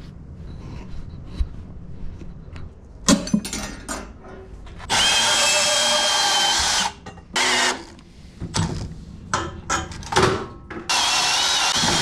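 Milwaukee FUEL cordless band saw cutting through old galvanized steel water pipe. It runs for about two seconds starting five seconds in, gives a brief burst, then runs again near the end, with a steady whine over the cutting noise. Clanks of metal being handled come between the runs.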